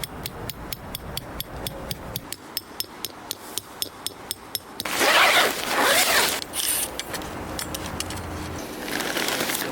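Tent gear being handled during pitching: a fast run of small clicks, about four a second, for the first five seconds, then a loud burst of fabric rustling about five seconds in.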